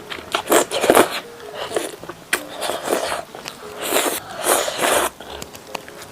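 Close-up eating sounds: a run of irregular crunching bites and chewing, loud and noisy.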